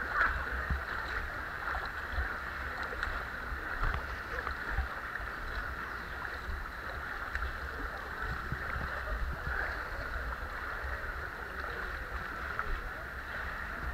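Several people wading through thigh-deep muddy creek water, a steady sloshing and swishing of water around their legs.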